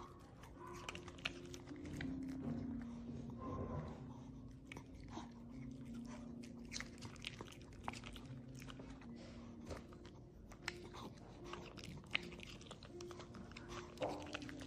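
A Maltese dog chewing pieces of Asian pear fed by hand, a run of soft, irregular crunches.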